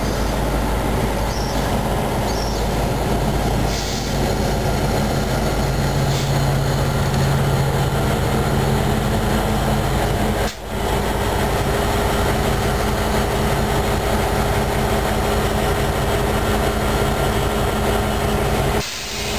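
A train passing close by: a diesel locomotive engine and steel wheels on the rails make a loud, steady rumble. The sound drops out briefly about halfway through and again near the end.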